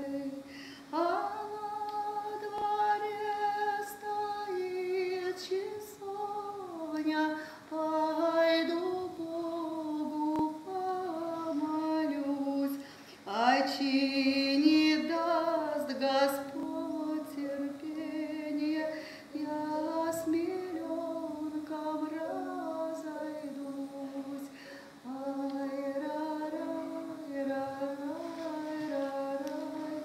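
A woman singing a slow solo melody in long held notes, sliding up into a phrase about a second in and again about 13 seconds in.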